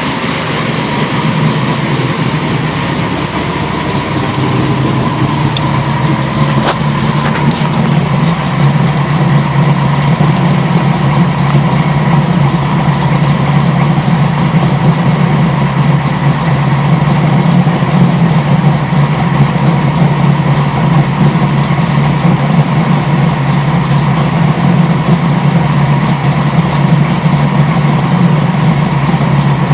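1973 Camaro's 360 ci small-block V8 with a hydraulic roller cam, idling steadily through a Magnaflow exhaust.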